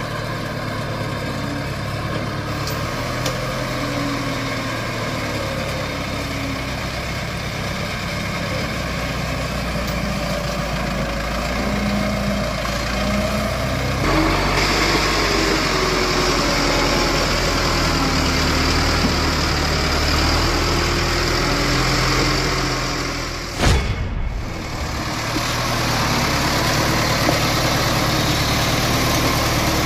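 A loaded truck's engine running under load as the truck crawls slowly over deep ruts, its pitch wavering. It gets louder and rougher about halfway through, and there is a single sharp knock about two-thirds of the way in.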